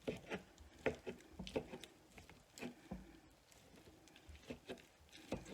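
Irregular knife taps on a cutting board as cooked rotisserie chicken is chopped into small pieces.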